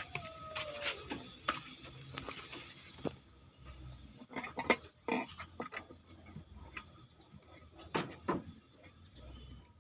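Irregular light clicks and knocks of small hard objects being handled, with the loudest knocks about five seconds in and again near eight seconds. A short falling tone sounds in the first second.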